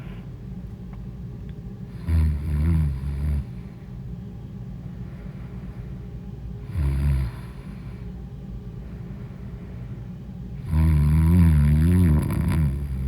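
A woman snoring loudly: three snores, a longer one about two seconds in, a short one near the middle and the longest near the end, each a low rattling tone whose pitch wavers. A steady low hum runs underneath.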